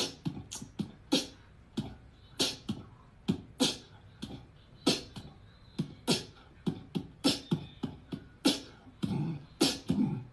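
Beatboxing: a fast, uneven run of mouth-made percussion, deep kick-like thumps alternating with sharp hissing snare sounds, about three or four hits a second.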